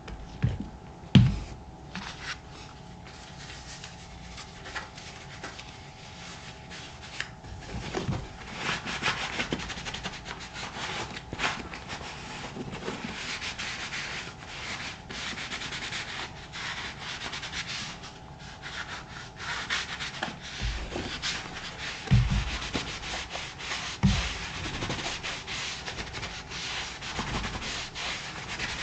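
A buffing glove rubbing back and forth over the creamed black leather of a moc-toe work boot, a steady run of scratchy strokes. There are a few dull knocks from handling the boot: one about a second in and two more near the end.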